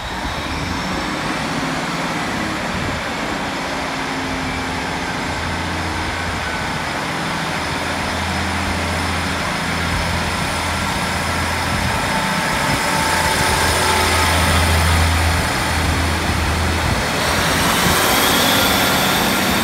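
Two coupled Class 153 diesel railcars passing close by on the move, their diesel engines running with a steady low throb that grows louder about halfway through. A rising high whine comes in near the end.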